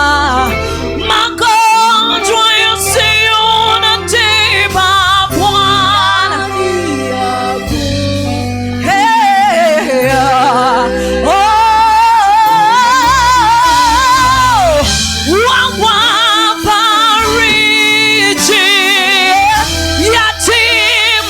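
Live gospel worship music: a singer's vocal runs and long held notes with vibrato over a band with steady bass.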